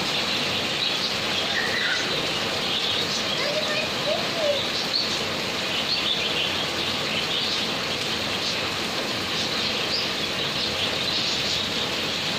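Steady rain falling, an even hiss throughout, with birds chirping over it.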